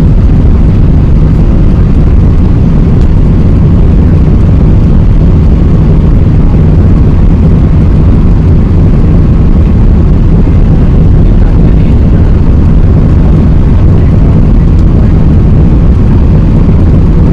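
Loud, steady jet engine and airflow noise of an Airbus A380 heard from inside the passenger cabin, mostly a deep, even rumble that does not change.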